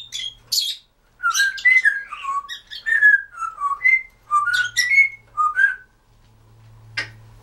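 Timneh African grey parrot whistling a quick string of about a dozen short notes, each sliding up or down in pitch, after a few brief chirps. A single click follows near the end.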